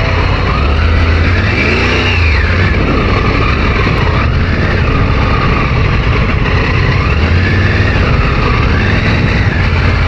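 Triumph Tiger 900's three-cylinder engine running at low speed, its revs rising and falling a few times as the rear tyre slips for grip on wet rock.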